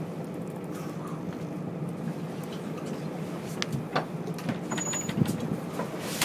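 Boat engine idling with a steady drone, with a few sharp knocks about four and five seconds in.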